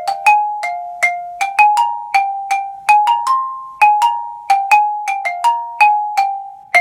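Xylophone played with mallets: a melodic line of single struck notes in an uneven, dotted rhythm, about two to three notes a second, each ringing briefly before the next.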